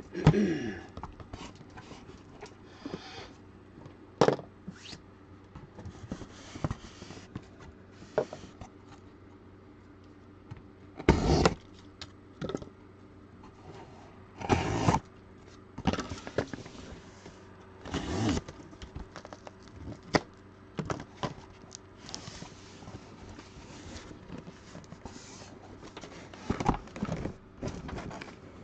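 Sealed cardboard hobby boxes being taken out and handled on a table: scattered knocks, scrapes and rustles, with a few louder thumps and slides as boxes are set down and moved, over a faint steady hum.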